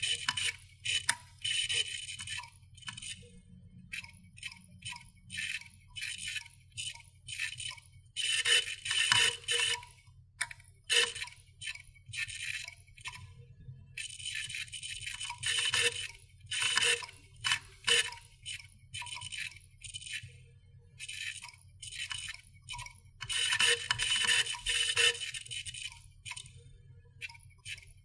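Creaking and clicking sound effect: dense runs of quick sharp clicks in bursts of a second or two, coming again several times with scattered single clicks between them, over a faint steady low hum.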